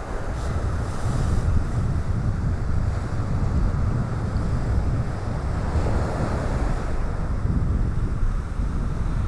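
Ocean surf washing onto a beach, a steady rush of breaking waves that swells as one wave breaks louder about six seconds in, with a brisk wind buffeting the microphone.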